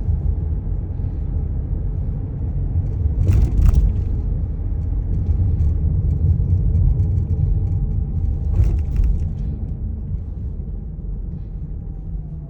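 Freight train passing over a level crossing with a heavy, continuous low rumble. It is broken by two sharp bangs about five seconds apart, and it fades over the last few seconds as the train moves on.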